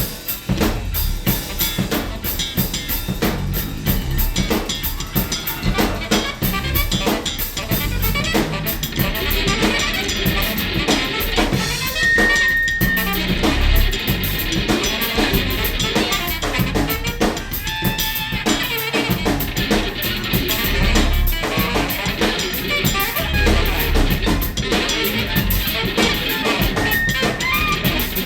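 Free-jazz band music driven by busy drum-kit playing with snare, rimshots and bass drum, under a dense wash of other instruments. A short held high note stands out about twelve seconds in.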